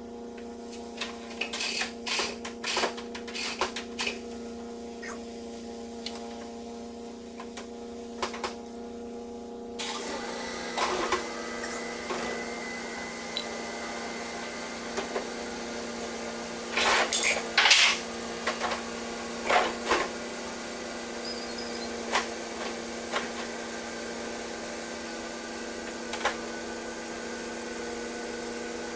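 A steady, low-pitched machine hum, growing fuller about ten seconds in, with scattered clanks and knocks of metal and wood as a heavy load is handled.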